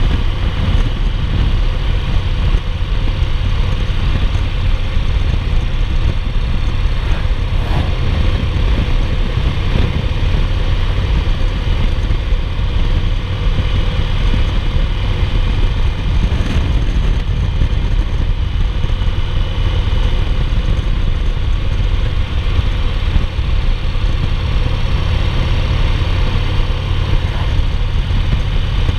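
2008 Yamaha Roadliner's air-cooled V-twin running steadily at cruising speed, mixed with steady wind noise.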